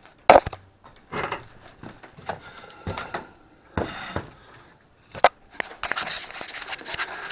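Handling noises as an RC plane is fitted into its carrier on the bike: a few sharp clicks and knocks, with short rustles and scrapes in between.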